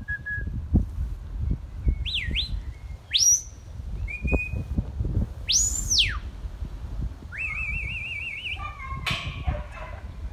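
Shepherd's whistle commands to a working border collie: about five separate whistled calls that sweep up and down in pitch, one held note, and a warbling trill near the end.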